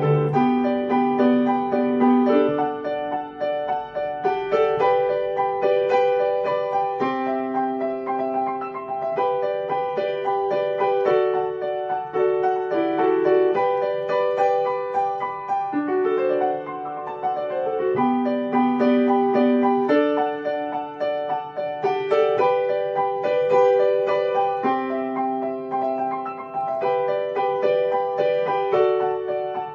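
Background piano music: a calm keyboard piece of steadily changing notes.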